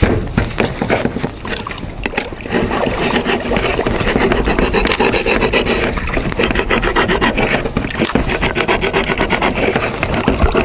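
Fast, rhythmic rasping strokes of a tool cutting or sawing through material, growing louder and steady from about two and a half seconds in.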